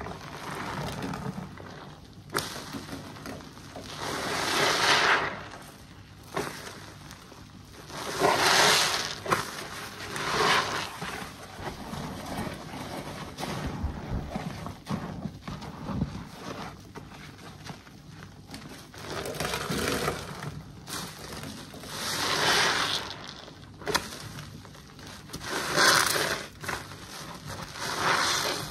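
Soapy body sponges squeezed and kneaded in a basin of sudsy water: wet squelching of foam and water, with a louder squelch every few seconds as the sponges are pressed.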